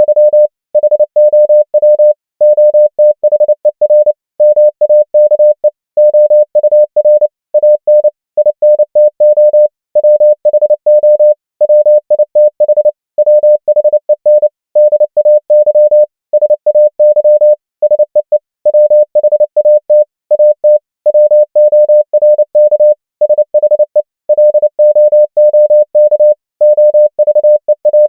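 Morse code at 29 words per minute: a single-pitch electronic tone keyed on and off in rapid dots and dashes, spelling out common English words, with short pauses between the words.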